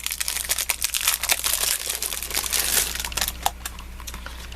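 Crinkling of craft-supply packaging being handled and opened: dense crackles for about three seconds, then quieter with a few light clicks.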